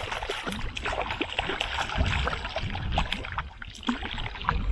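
Shallow river water splashing and gurgling around the angler, with many small sharp splashes and knocks and a fluctuating low rumble.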